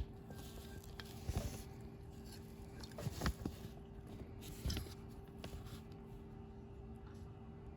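Small clicks and knocks of a chrome dash cruise control switch assembly being handled, a few scattered taps over a steady low hum.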